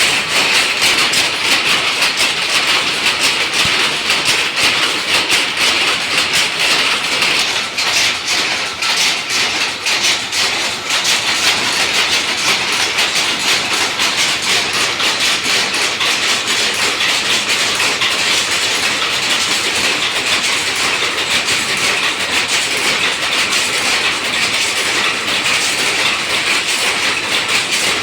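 Silk saree weaving looms running: a loud, steady mechanical clatter of rapid, closely packed clacks.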